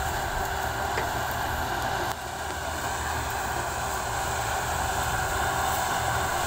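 Sugarcane harvester's engine running steadily at work, a continuous mechanical drone that dips slightly about two seconds in.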